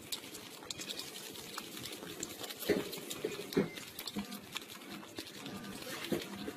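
A small puppy lapping milk from a drinking glass with its tongue: a quick, uneven run of wet slurping clicks, with a few louder slurps around the middle.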